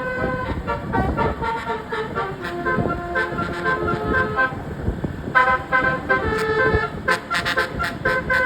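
A tour bus's multi-note 'telolet' (basuri) horn playing a tune of held, changing notes, pausing briefly in the middle and then starting again. Short sharp sounds come between the notes near the end.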